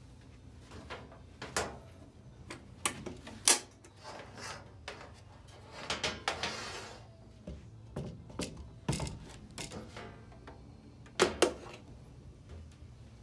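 Sheet-metal coin-op control box being handled: a series of sharp clicks and knocks as its hinged front door is opened, with a brief scraping rustle about six seconds in.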